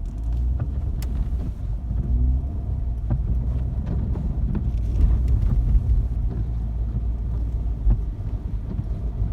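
Car driving on a snow-covered road: a steady low rumble of engine and tyres.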